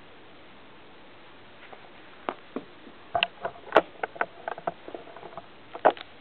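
Plastic Lego bricks clicking and knocking as they are handled and pressed together: an irregular run of sharp clicks starting about two seconds in, the loudest about halfway through and near the end.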